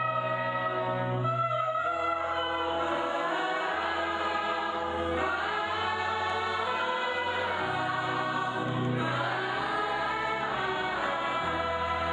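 A choir singing slow sacred music over instrumental accompaniment, with held bass notes that change every second or two.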